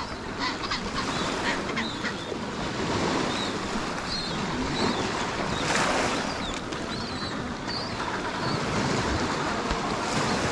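Adelie penguin colony calling, with short high chirps scattered through, over small waves washing against a stony, ice-strewn shore and wind. A louder rush of surf or wind comes about six seconds in.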